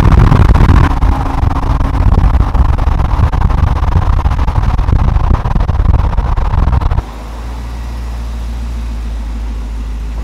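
A customized 1950 Chevrolet pickup driving at speed on a highway, its engine and road noise loud and steady. About seven seconds in the sound cuts to the truck's engine idling steadily, much quieter.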